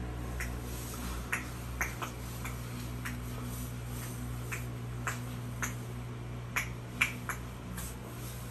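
Steady low electrical hum of running aquarium equipment, with a dozen or so light, irregular clicks scattered over it.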